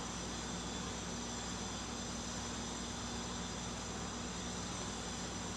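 Steady background hum and hiss with faint high, constant tones, unchanging throughout and with no distinct event.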